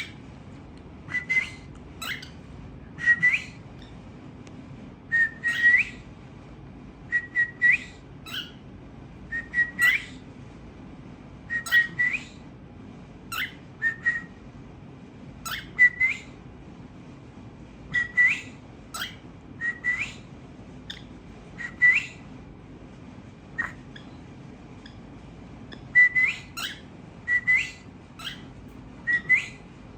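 Cockatiels whistling: short whistled calls, each holding one note briefly and then sweeping quickly upward, repeated every second or two over a steady low hum.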